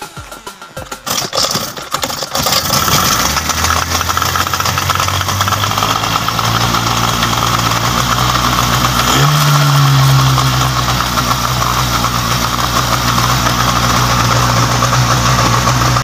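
40 hp Yamaha outboard motor, running with its cowling off, being pull-started: a few uneven turns in the first couple of seconds, then it catches and runs steadily. About nine seconds in it is throttled up to a higher, steady pitch.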